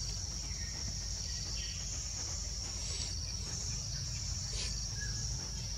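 Steady high-pitched chorus of forest insects running unbroken, over a low background rumble, with a couple of faint short chirps.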